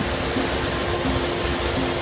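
Fortschritt E512 combine harvester running while harvesting, with the dense rushing noise of its diesel engine, threshing gear and straw thrown out behind. A steady tone runs through it, and a lower tone comes back about every 0.7 s.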